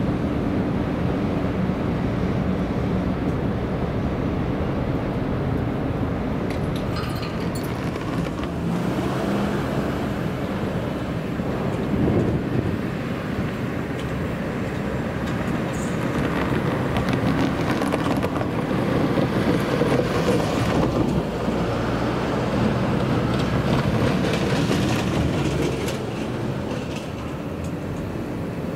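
A train running slowly on rails: continuous running noise with a steady low hum under it.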